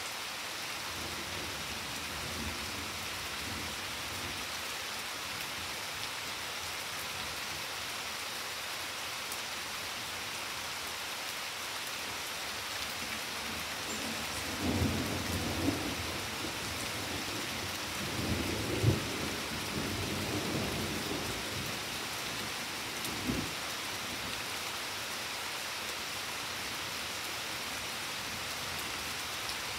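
Steady rain falling, with thunder rolling twice about halfway through, the second roll the loudest with a sharp crack, then one short crack a few seconds later.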